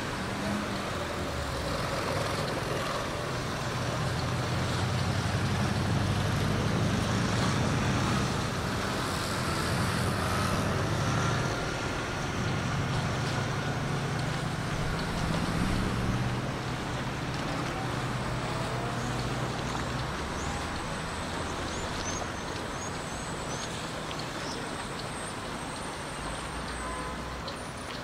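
Road traffic running along a seafront road: a low vehicle engine rumble builds over the first few seconds, is strongest for several seconds, and dies away by about twenty seconds in, over a steady noisy wash of traffic and choppy water against the seawall.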